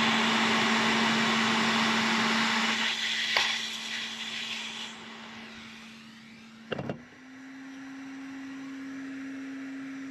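Hot air rework station blowing on a circuit board to melt lead-free solder on a barrel jack's through-hole pins: a steady rushing hiss with a low hum, fading from about three seconds in. A sharp click about three and a half seconds in and a short knock near seven seconds, after which a quieter steady hum remains.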